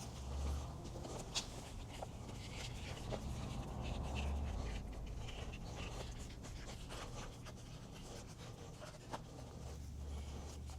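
Faint rubbing with scattered light clicks: a rubber gasket being pressed into place on the base plate of an upright core drill.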